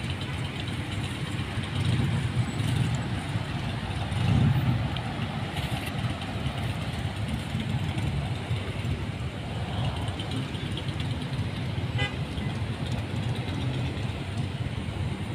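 Road traffic: cars driving past on a multi-lane road, a steady rumble of engines and tyres that swells as vehicles pass close by about two and four and a half seconds in.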